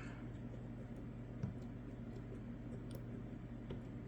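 Faint, scattered clicks of a disc-detainer pick turning the discs inside an Anchor Lås disc detainer padlock, with one slightly sharper click about one and a half seconds in.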